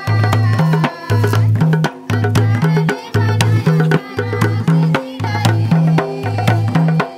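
Gond maandar barrel drum played by hand in a steady dance rhythm: deep booming strokes about once a second, alternating between a lower and a higher tone, with sharp slaps in between.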